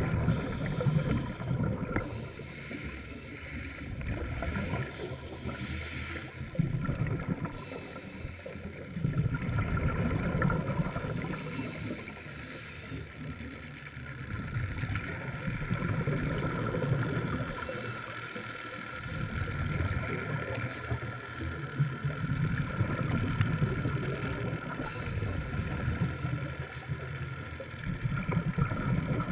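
Scuba diver breathing through a regulator underwater: exhaled bubbles gurgle out in surges every four to six seconds, with quieter stretches between.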